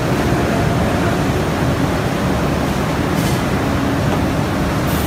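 Steady loud machinery noise, a low rumble with a hiss over it and no clear rhythm, with a brief light clatter about three seconds in.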